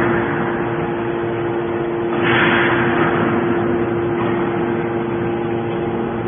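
Hydraulic scrap-metal baler running, its pump and motor giving a steady hum. A rush of hissing noise swells about two seconds in and fades over the next couple of seconds.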